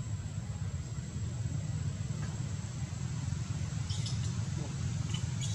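A baby long-tailed macaque gives a few faint, short, high squeaks about four seconds in and again near the end, over a steady low rumble and a thin high whine.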